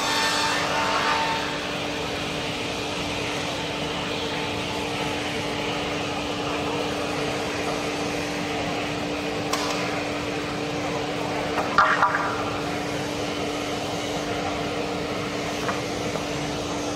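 PR GL-400 slab-edging circular-saw line running with a steady motor hum as a slab feeds through its saws, a little louder in the first second and a half. Sharp knocks come about ten seconds in, then a louder clatter about twelve seconds in, then a light knock near the end.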